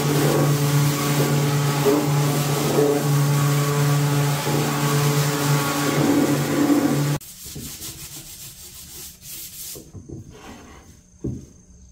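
Festool random orbital sander running with its dust-extraction hose attached, the pad buzzing steadily across a wooden frame. About seven seconds in it gives way suddenly to quieter, irregular rubbing strokes of hand sanding on the wood.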